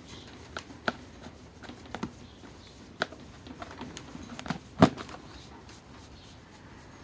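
Irregular light clicks and taps, with one sharper knock about five seconds in. They come from a hand and a phone brushing and knocking against the wire bars of a cat cage while stroking a cat.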